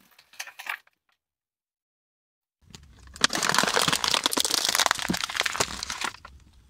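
Car tyre rolling over a clear plastic container stuffed with shredded filling: the plastic crackles and crunches as it is flattened. A few crackles at the start, then a pause of nearly two seconds, then about three and a half seconds of dense crackling and crunching over a low rumble, thinning to scattered cracks near the end.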